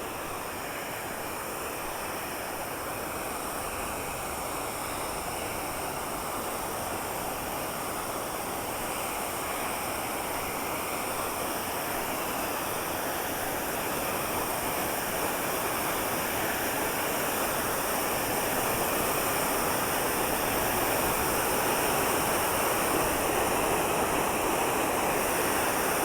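Waterfall running in full spate, with a lot of water coming over it: a steady rush of falling water that grows gradually louder.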